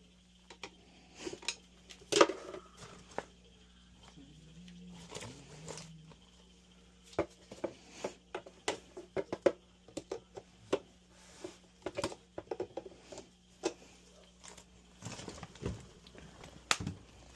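Irregular clicks, taps and light clatter of tools and metal parts being handled while a dryer is taken apart, over a faint steady hum.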